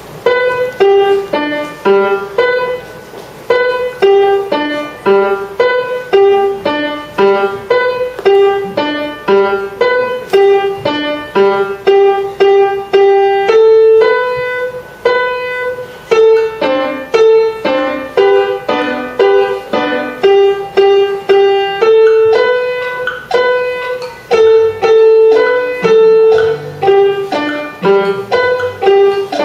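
An alarm going off with a melody in a piano sound: a quick tune of single struck notes that starts suddenly.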